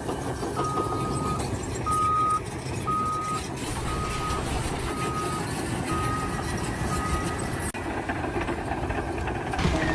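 A vehicle's reversing alarm beeping about once a second, seven single-pitch beeps that grow fainter, over a steady low engine rumble.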